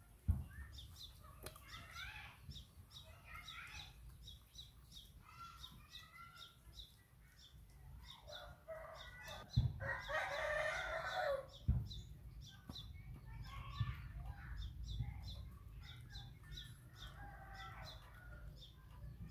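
Chickens in the yard: a rooster crowing, with one long crow about ten seconds in and shorter calls and clucks between. A high, fast chirping repeats several times a second throughout.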